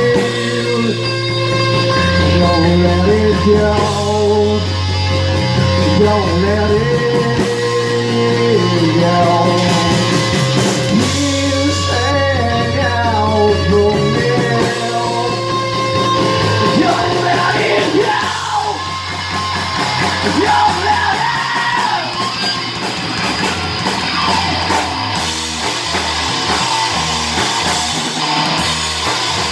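Live rock band playing: electric guitar, bass guitar and drum kit, with singing.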